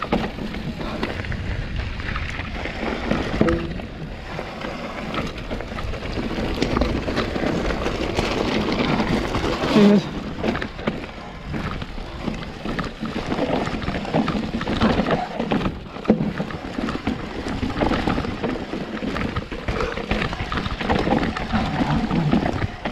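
Orange Four full-suspension mountain bike descending a rough, rocky path. The tyres clatter continuously over stone, with many sharp knocks from the frame and suspension.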